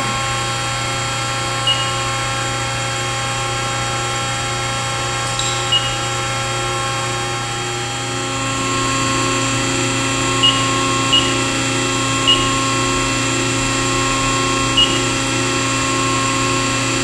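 Accurpress CNC press brake running: a steady hum from its hydraulic pump and motor that shifts to a slightly louder, lower-toned note about halfway through. Six short, high beeps are scattered through it.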